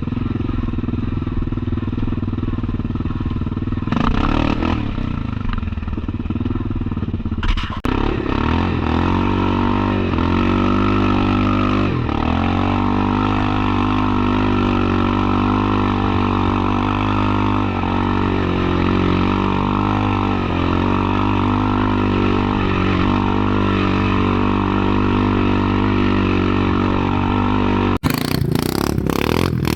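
Yamaha Kodiak 700 ATV's single-cylinder four-stroke engine running steadily under load while riding a trail. Its note shifts once about a quarter of the way in, with a brief knock. Near the end the sound breaks abruptly with a few sharp clatters.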